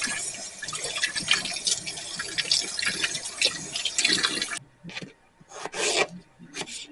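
Tap water running into a sink, with small knocks, cutting off suddenly about four and a half seconds in; then a few short scraping strokes.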